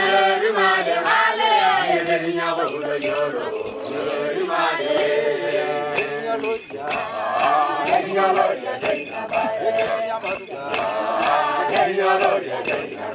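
A group of voices singing a chanted song together, with several voices overlapping throughout.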